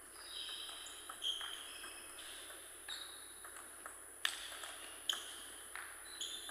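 Table tennis ball struck back and forth between rubber paddles and bouncing on the table in a rally: a string of sharp, irregularly spaced pings, the loudest about four and five seconds in.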